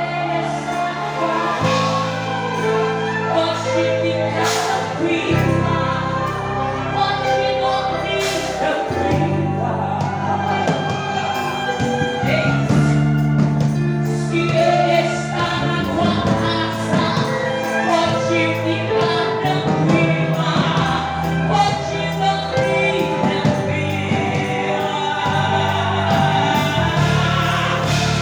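Gospel hymn sung by a group of voices over instrumental accompaniment, with a held bass line that changes note every few seconds.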